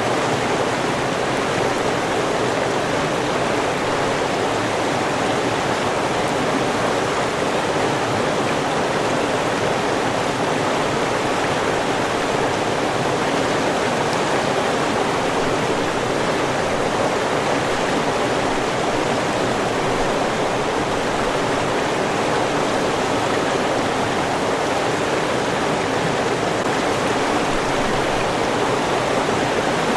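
River water rushing and babbling over rocks in a steady, unbroken wash.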